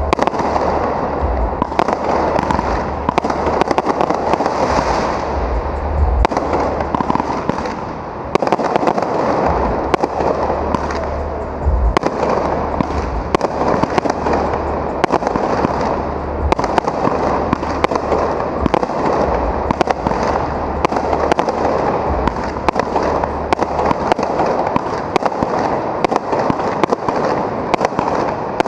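Aerial fireworks bursting overhead in a rapid, continuous barrage of bangs and crackles, with no pause.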